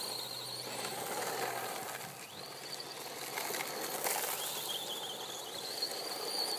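Brushless electric motor of an Ansmann Mad Rat RC buggy whining up in pitch as it accelerates, twice, each time settling into a steady high whine, over a hiss of tyres on loose gravel.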